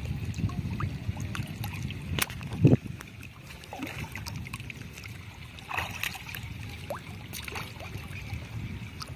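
A hooked fish splashing at the water's surface as it is hauled in by hand line toward a rocky bank, over a steady low wash of water. One loud knock comes a little over two and a half seconds in.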